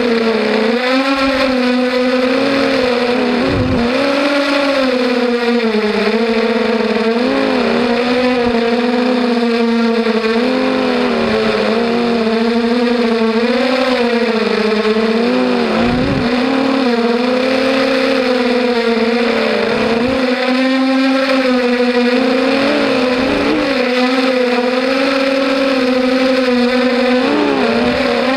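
Racing quadcopter's brushless motors whining without a break, the pitch rising and falling over and over as the throttle changes.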